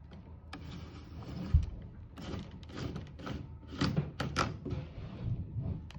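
An old twin-and-earth cable being dragged up through a wall cavity: a dull thump about a second and a half in, then a run of scrapes and light knocks as the cable rubs and bumps its way out.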